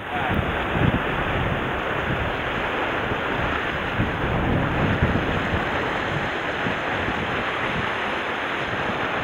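Steady wind noise on the microphone over sea waves washing against a rocky shore.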